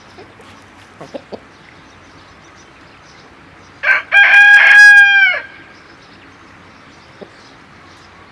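Rooster crowing once, loud: a short opening note, then a held note of about a second that drops in pitch as it ends. A few short clucks come about a second in.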